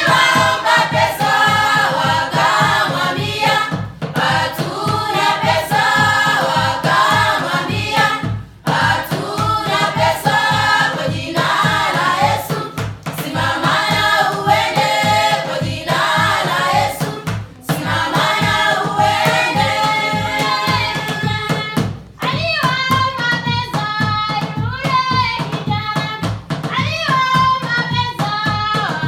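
A group of voices singing in harmony, choir-style, over a steady percussive beat, with short breaks between phrases.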